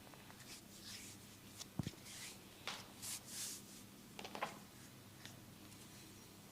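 Hands rubbing and brushing over hair and skin during a head massage: a handful of short, soft swishes, with one light thump about two seconds in.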